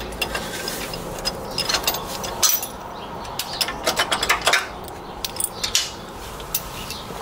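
Irregular light metal clinks and scrapes of a bolt and a small steel axle bracket being worked loose and pulled off by hand, with a few sharper knocks in the middle.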